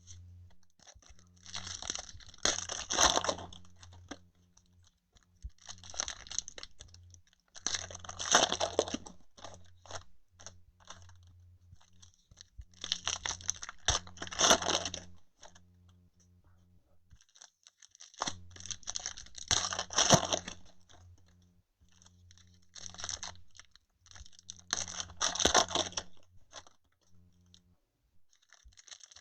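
Trading card pack wrappers being torn open and crumpled, in crinkly bursts of a second or two every few seconds.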